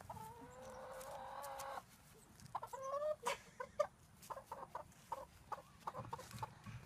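Hen clucking and squawking while being picked up and held: one long drawn-out call at the start, a couple of rising squawks a few seconds in, then a run of short clucks.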